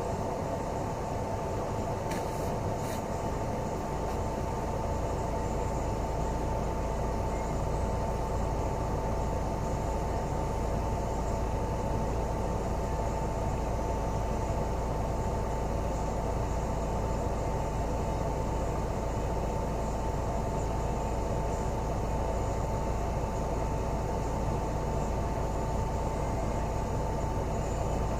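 Inside a city bus cabin while it drives: steady engine and road rumble with a constant hum.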